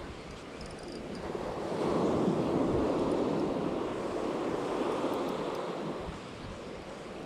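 Waves washing onto a shore, swelling and easing in slow surges, with some wind on the microphone.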